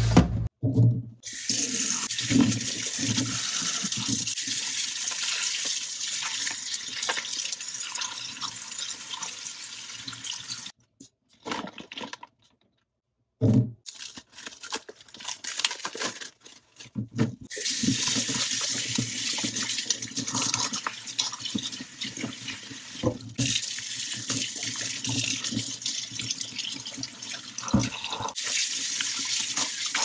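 Kitchen tap running into a stainless steel sink as vegetables are rinsed under it, a steady hiss. Near the middle the water stops for a few seconds, with a brief silence and then plastic bag rustling and light knocks before the tap runs again.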